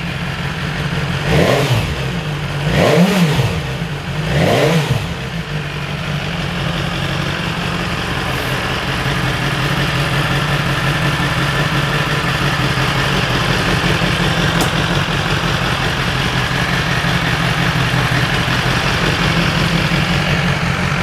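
2018 BMW S1000R's inline-four engine, breathing through an Akrapovic exhaust, blipped three times in quick succession in the first five seconds, then settling to a steady idle on a cold start.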